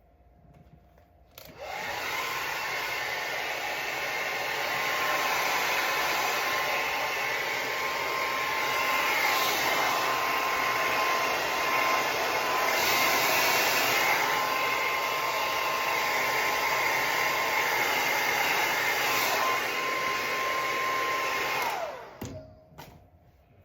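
Handheld blow dryer switched on about a second and a half in, running steadily with a whining motor for about twenty seconds, then switched off near the end, its whine dropping away as the motor winds down.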